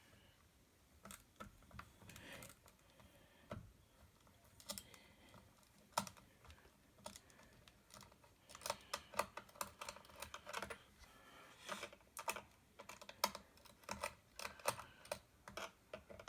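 Faint, irregular light clicks and taps of hands and a tool working on a laptop's plastic bottom panel, sparse at first and coming thick and fast from about halfway through.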